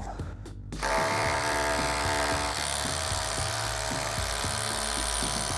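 Cordless drill starting about a second in and running steadily, boring into a precast concrete splash board; its tone shifts a couple of seconds later.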